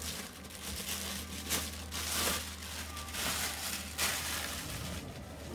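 Thin plastic bag crinkling and rustling as it is pulled off a stainless steel pot, in a run of irregular crackly bursts.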